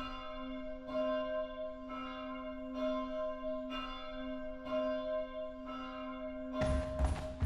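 A bell struck about once a second, each strike ringing on into the next, heard as a virtual sound source through simulated sound propagation. About six and a half seconds in, a brighter, noisier sound joins it.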